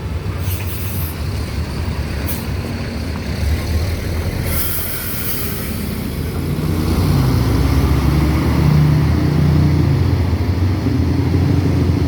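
Heavy diesel bus or truck engine running close by, with short bursts of high air hiss from the air brakes in the first half. The engine grows louder about seven seconds in.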